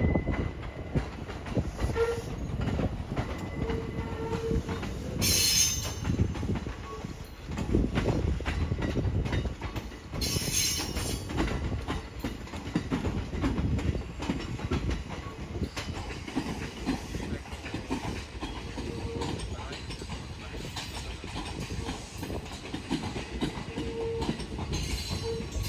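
A train running on the rails: a steady heavy rumble full of rapid clicks, with two short hissing bursts about five and ten seconds in.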